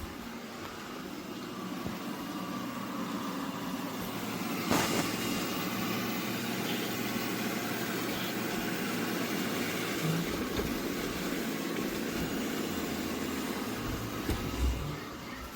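eufy RoboVac 11S Max robot vacuum running with a steady whir of motor and suction. There is a sharp click about five seconds in and a couple of low bumps near the end.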